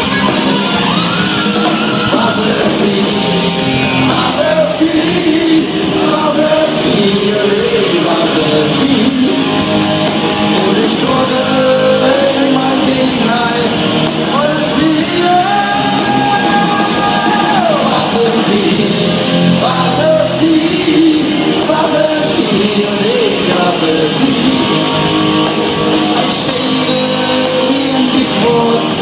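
Rock band playing live in a large hall: electric guitar carrying a bending melody over the full band, with a steady beat.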